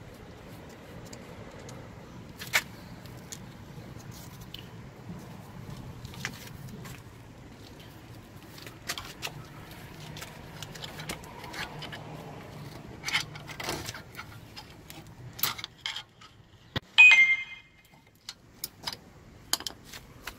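Irregular metallic clicks and clinks from a socket wrench and steel brake caliper parts as the caliper bolts are worked loose. The clicks get louder in the second half, and near the end comes a single loud, ringing clink.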